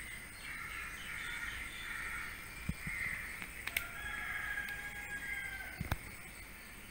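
Birds calling in the background, with a few light knocks.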